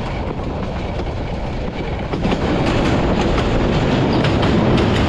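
Train running on the rails, wheels clattering over the rail joints. It grows louder about two seconds in.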